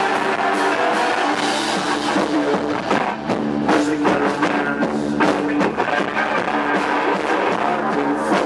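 Post-punk rock band playing live: held electric guitar notes over a steady drum-kit beat with frequent cymbal hits.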